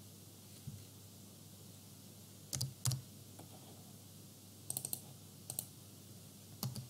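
Scattered computer keystrokes and mouse clicks, a few at a time: two close together near the middle, a quick run of several a little later, and a couple more near the end.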